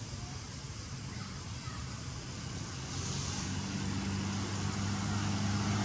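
A motor vehicle's engine running, a steady low hum that grows louder from about halfway in as it draws nearer.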